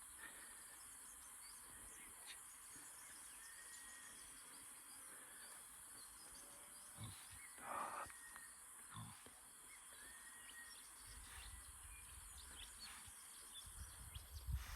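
Quiet bush ambience: a steady high hiss with a few short, faint animal calls, and one brief louder sound about eight seconds in. Low rumble builds near the end.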